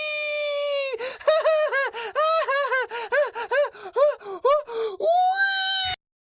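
High-pitched wailing voice from a meme sound clip: one long, slightly falling note, then a quick run of short rising-and-falling yelps, about three a second, then another held note that cuts off suddenly.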